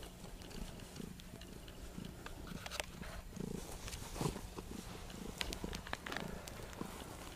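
Ginger-and-white domestic cat purring steadily while stroked, a low hum that swells and eases, with faint scattered rustling clicks.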